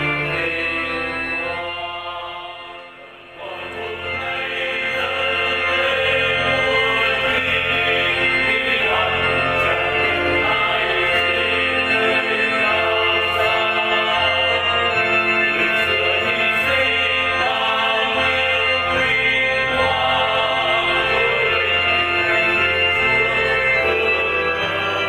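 Hymn music with organ accompaniment and singing. The music dips briefly about three seconds in, then carries on with sustained chords.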